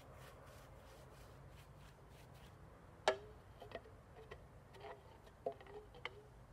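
A faint low hum, then from about three seconds in a string of about seven sharp, irregular taps, each with a short ring; the first tap is the loudest.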